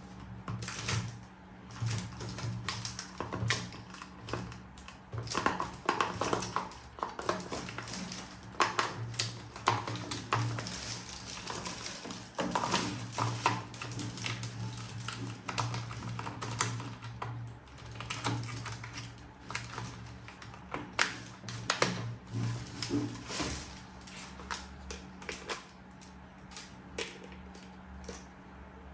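Hard plastic toy parts being handled: irregular clicks, taps and rattles, thicker in the middle stretch and thinning toward the end.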